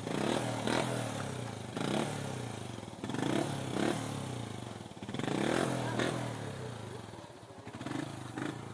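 Motorcycle engine running, with a steady low note and repeated short rises and falls in revs.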